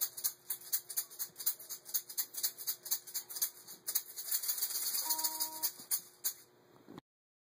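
Handcrafted gourd shaker rattling in a steady rhythm, about three shakes a second. Around four seconds in the shaking turns into a fast, near-continuous rattle, then a few last shakes, and it stops about six and a half seconds in.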